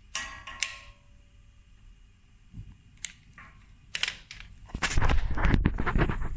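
Two sharp metallic clinks, each ringing briefly, from pliers knocking the welded steel cooker frame, with a few lighter clicks a couple of seconds later. Near the end, loud irregular rumbling and knocking of handling noise as the camera is moved.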